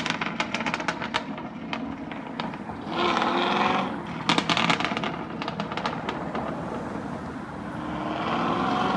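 Chevrolet Camaro SS 6.2-litre V8 with catless long-tube headers and a tune, running with rapid crackles and pops from the exhaust. The pops come in two clusters, in the first second or so and again around four to five seconds in, with a short louder rush of engine sound between them.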